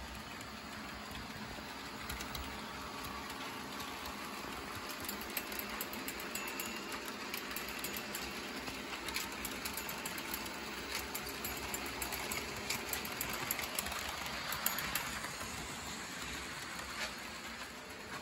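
HO-scale model trains running on the layout track: small electric motors whirring and metal wheels clicking over rail joints, with a run of quick light clicks through the middle.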